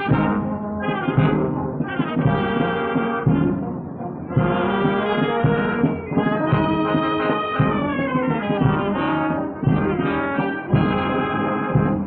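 Brass band music, with trombones and trumpets to the fore, playing phrases of held notes with a few sharp attacks, heard on a muffled early optical film soundtrack with no treble above about 4 kHz.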